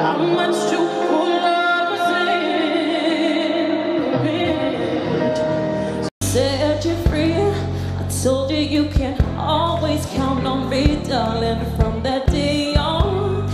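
Live female pop vocals with band accompaniment: a woman holds sustained, vibrato-laden notes, then after a brief dropout about six seconds in, a second live performance follows with heavier bass under a moving sung line.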